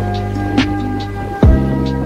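Background music: held electronic chords over a deep bass drum, with a sharp hit about half a second in and a booming bass-drum hit about one and a half seconds in.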